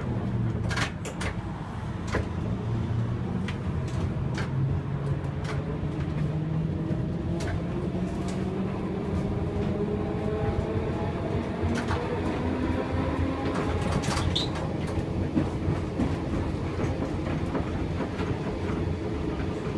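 Gotha T57 tram car running, heard from inside the driver's cab: a steady rumble with a motor whine that falls, then climbs slowly, and scattered sharp clicks and knocks of the wheels over rail joints and points.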